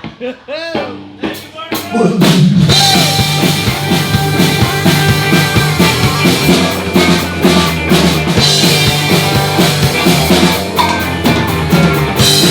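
Live rock band playing an instrumental passage. A sparser lead-in with bending notes is followed, about two seconds in, by the full band with drums coming in loud.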